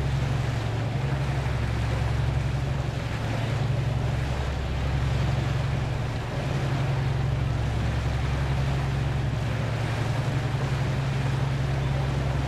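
Steady low engine drone of a lake cruise boat under way, with an even hiss of wind and water over it.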